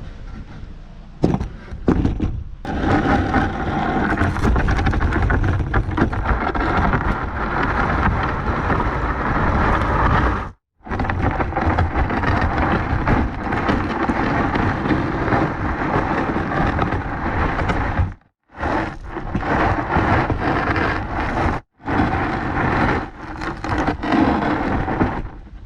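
Crushed stone being spread and levelled: a loud, steady scraping rumble of gravel dragged over gravel, broken by sudden cuts between several short clips.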